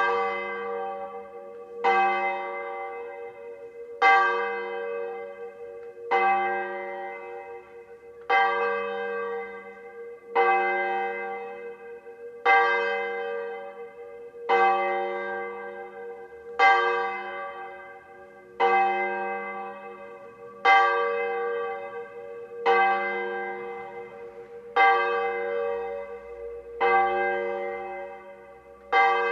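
A single large bell tolling slowly at one pitch, struck about every two seconds, each stroke ringing on and fading before the next, about fifteen strokes in all.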